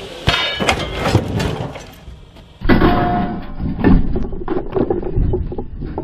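Truck dropped onto a boulder on its square-tube steel rock slider: a sudden heavy impact with clanking and rattling after it, then a second loud impact about two and a half seconds in.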